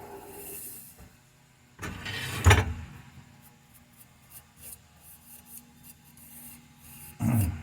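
Wood lathe's motor hum dying away as the lathe is switched off and spins down. Then two loud bursts of handling clatter: the louder about two and a half seconds in, the other near the end, with faint taps in between.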